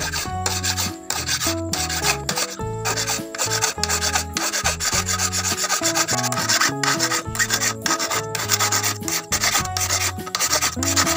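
A flat hand file rasping back and forth on a metal sewing-machine feed dog clamped in a bench vise, in repeated strokes with short gaps between them. The mechanic is filing the sides down level with the worn centre section.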